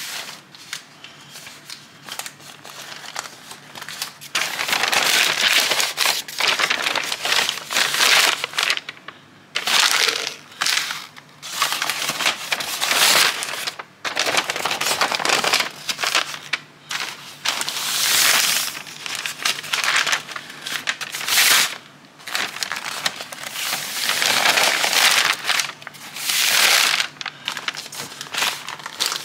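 Pink butcher paper crinkling and rustling in irregular bursts of a second or two as it is folded and pressed around a smoked brisket to wrap it.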